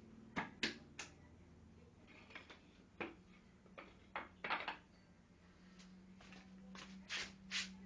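Light knocks and clicks, about a dozen at irregular intervals, with a faint steady hum coming in about halfway.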